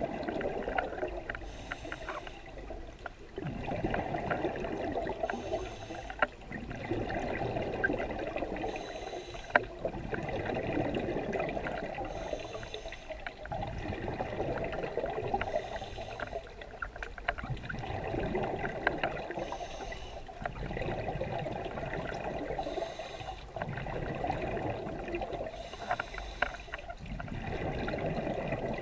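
Scuba regulator breathing underwater: a short hiss of air through the demand valve on each inhalation, then a longer bubbling rush as the breath is exhaled, repeating steadily about every three and a half seconds, eight breaths in all.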